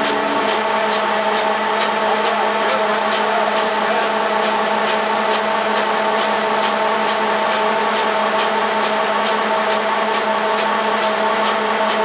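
Hensley Super Auger on a bulk feed trailer running while unloading feed: a steady mechanical hum and whine, with a faint regular ticking about twice a second.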